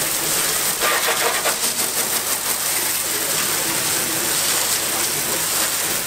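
Steady hiss of a hard water spray from a hose nozzle hitting the ribbed steel bed floor of a 1979 Ford F-150, washing out caked dirt.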